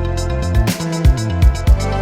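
Background music with a steady beat: a bass line and drums.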